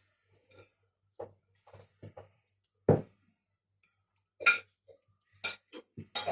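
Kitchen utensil knocking and scraping against a baking pan, prying at a frozen shortbread traybake stuck in it: irregular short clinks and knocks, two louder ones about three and four and a half seconds in, and a quick run of them near the end.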